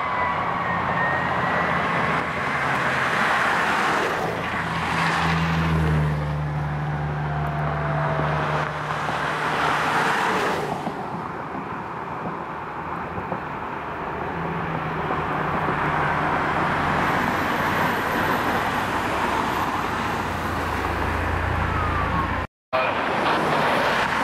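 Fire engines pass one after another with sirens wailing and engines droning, the engine noise swelling as each goes by. The sound cuts out for a moment near the end.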